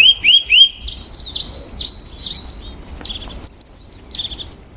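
Small birds chirping and singing: a quick, unbroken run of high, sliding chirps.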